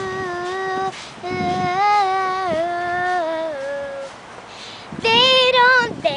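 A young girl singing unaccompanied, holding long drawn-out notes, with a higher, louder held note about five seconds in.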